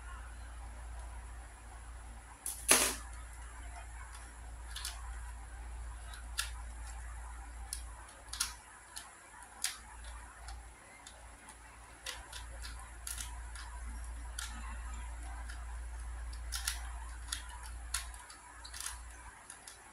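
Ju Xing keychain 3x3 puzzle cube being turned by hand: scattered, irregular sharp plastic clicks as its layers snap round, with one much louder click about three seconds in.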